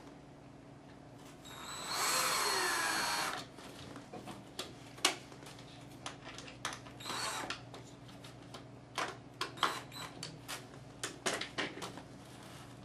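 Cordless drill-driver driving a screw through a dome camera's plastic mounting base into a ceiling tile: a whirring run of just over a second, its pitch falling near the end, then a shorter run a few seconds later. Scattered clicks and knocks from the plastic base being handled follow.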